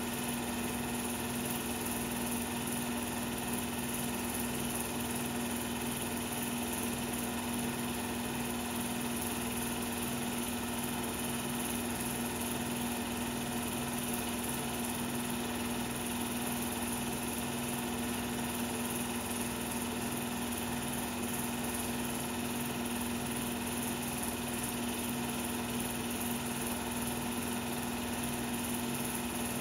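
16mm film projector running: a steady motor hum and mechanical whir that does not change.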